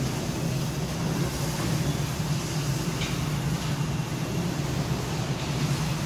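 Automatic sectional garage door closing: its drive motor runs with a steady low drone as the panels roll along the overhead track.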